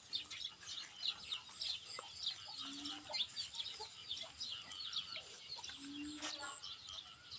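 Many small birds chirping, a dense run of quick, short, high calls throughout, with two or three brief low calls mixed in.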